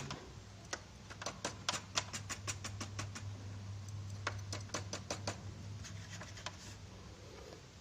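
Irregular light clicks and taps from handling a small plastic cooling fan just taken out of a Polytron speaker, over a steady low hum.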